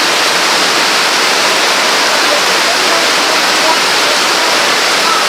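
Heavy rain falling, a loud, steady, even hiss of rain on the ground and surfaces.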